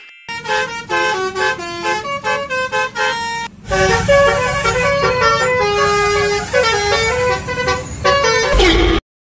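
Basuri telolet bus horn playing a tune of short, quick notes that step up and down in pitch, in two phrases, the second louder with a low rumble beneath it; it cuts off suddenly near the end.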